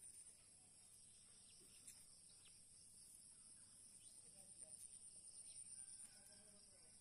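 Near silence: a faint, steady, high-pitched insect chirring in the background, with faint voices around the middle and near the end.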